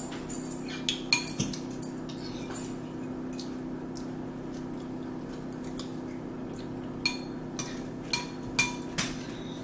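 Metal spoon and fork clinking against bowls and plates while eating: scattered single clinks, several close together in the last few seconds, over a steady low hum.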